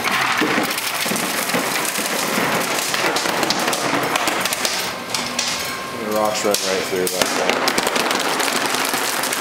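Small rocks clattering on the moving metal link-chain of a rock conveyor and tumbling off its end into a plastic tub: a dense, continuous run of clicks and knocks.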